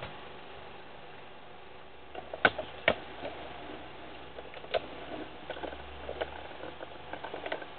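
Background hiss of a Super 8 film soundtrack with irregular clicks and pops, the loudest two close together a few seconds in; no music or dialogue.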